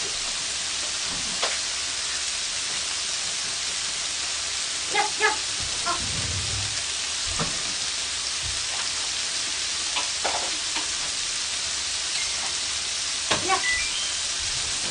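Thin-sliced pork belly wrapped around shrimp sizzling on a grill plate, a steady hiss, with a few faint brief clicks.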